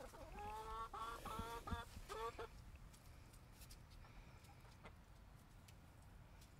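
Backyard hens clucking: a quick run of about six short calls in the first two and a half seconds, faint overall.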